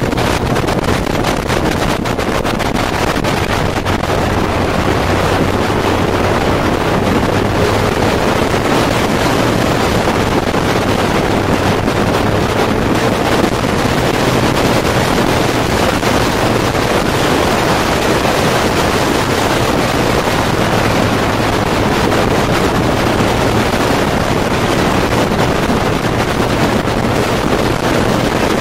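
Wind rushing over the microphone with the steady drone of a Kawasaki Z1000's inline-four engine running at road speed, recorded on the bike.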